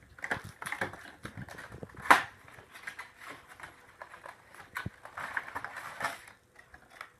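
Plastic toy packaging being handled and opened: scattered clicks and crackles, with a sharp snap about two seconds in.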